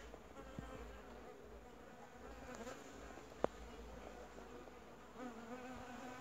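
Bees buzzing, faint, with the pitch wavering as they fly about. A single sharp click comes about halfway through.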